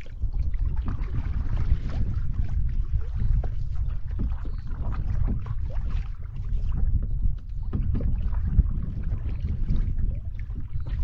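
Wind buffeting the microphone with a steady low rumble, while water laps and splashes irregularly against the hull of a canoe moving over choppy river water.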